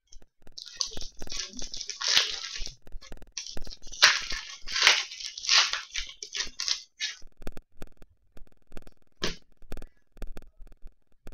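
Crinkly trading-card pack wrapper rustling and tearing open in a long run of short crackling bursts, then a few light taps and clicks as the cards are handled.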